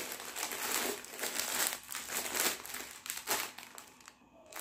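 Plastic packaging crinkling and rustling in irregular bursts as a new kurta set is unwrapped and handled. The rustling dies away shortly before the end.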